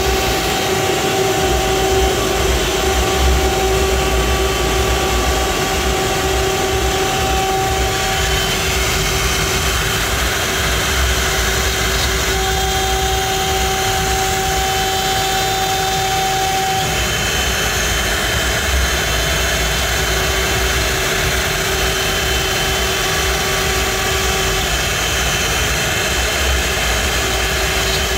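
CNC router spindle milling a wooden board, with suction from the dust extraction hose at the cutter: a loud, steady machine noise with a steady tone on top. A higher tone drops out for stretches and comes back.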